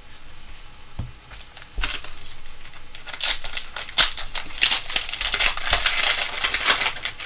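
Foil trading-card pack wrapper torn open and crinkled by hand, a loud crackling rustle starting about two seconds in. Before that, quieter sounds of cards being handled.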